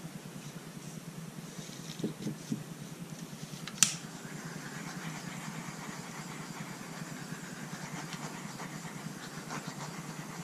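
A couple of low knocks as the canvas is set down, then a sharp click about four seconds in and a steady hiss: a handheld torch being lit and passed over wet acrylic pour paint to bring up silicone cells.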